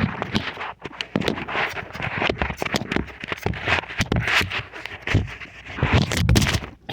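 Dense, irregular crackling, clicking and rustling with a few dull knocks: close handling noise as the camera is moved and set down.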